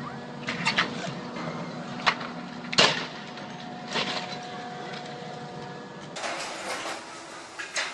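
A sailboat's mast striking the underside of a bridge: a few sharp knocks and cracks, the loudest nearly three seconds in. They come over a steady hum, with a brief rush of noise about six seconds in.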